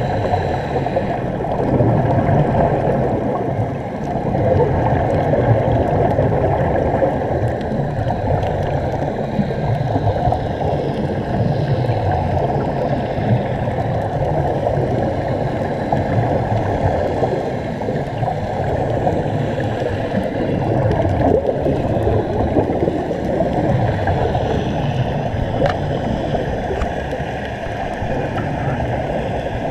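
Continuous muffled underwater rumble and bubbling, dull and bass-heavy as heard through a GoPro's waterproof housing, from air streaming out of sea-walking helmets and a diver's regulator.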